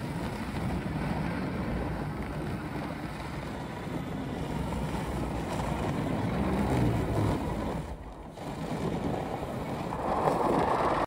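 Electric-converted 1994 Yamaha Timberwolf ATV driving over packed snow: a steady rush of tyre and drive noise, no engine, mixed with wind on the microphone. It dips briefly about eight seconds in and gets louder near the end as the ATV comes toward the microphone.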